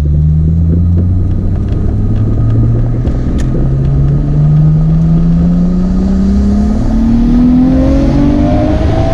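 Nissan RB26DETT twin-turbo inline-six accelerating under load, its note climbing steadily in pitch through a single gear. This is a test pull to check for the misfire and breaking-up under boost after fresh, gapped-down spark plugs.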